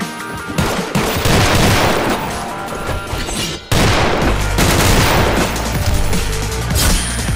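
Rapid gunfire sound effects, shots in quick volleys, over action music. A little past halfway the sound drops out for an instant and comes back with a heavy, loud bass line under continuing shots.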